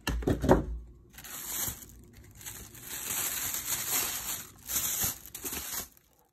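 Crinkling and rustling of wrapping material being handled, in several uneven bursts, with a few sharper crackles in the first half-second.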